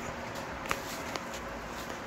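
Quiet room tone: a steady hiss, with two small clicks about half a second apart near the middle.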